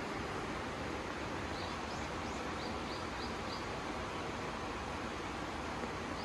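Steady outdoor hiss of forest ambience, with a small bird calling a quick run of short, high chirps between about one and a half and three and a half seconds in.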